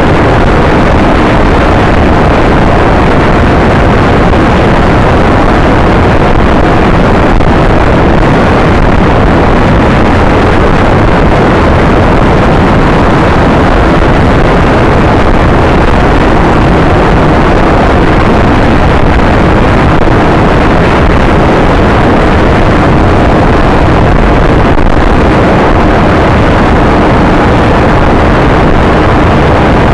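Motor scooter riding along a road: a steady engine drone under loud, constant wind rush on the microphone, with no change in pace.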